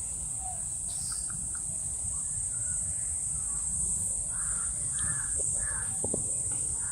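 Birds calling outdoors, several short harsh calls in the second half, over a steady high-pitched drone.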